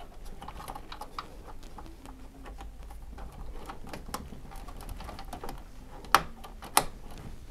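Small plastic clicks and rattles of PCIe power cables being handled and plugged into a graphics card, with two sharp, louder clicks near the end.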